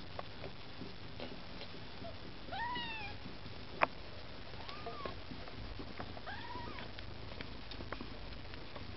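Maine Coon kittens mewing: three short, high mews, each rising then falling in pitch, as the litter jostles to nurse. Faint clicks and rustles of the kittens moving, with one sharp click about four seconds in.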